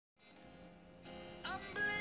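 Background song starting: quiet music fades in, and a sung voice comes in about one and a half seconds in.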